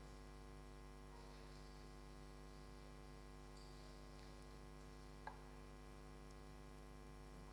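Near silence: a steady low electrical hum, with one faint click about five seconds in.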